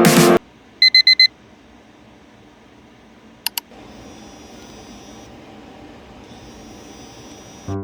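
Four quick, high electronic beeps from a small digital device about a second in, then two sharp clicks, then a faint steady hum.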